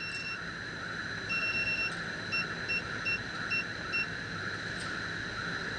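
Electronic beeps from the keypad of an AC refrigerant recovery and recharge machine as the gas-filling charge weight is set. One beep runs to just after the start. A second comes about a second later. Then five short, evenly spaced beeps follow, all over the steady hum of the running unit.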